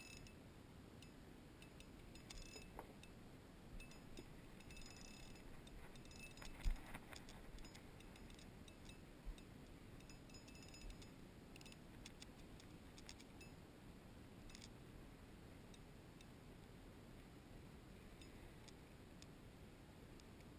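Near silence with faint, scattered ticks and clicks, some in quick little runs, and one short knock about seven seconds in.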